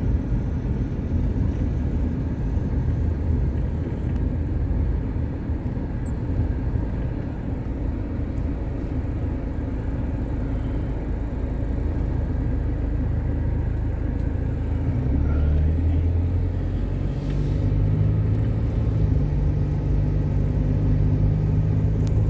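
Car engine and road rumble heard from inside the cabin while driving slowly. From about fifteen seconds in, the engine hum comes up and steps higher in pitch as the car accelerates.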